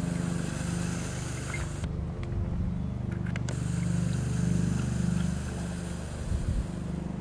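Steady low motor drone that swells and fades slightly in loudness.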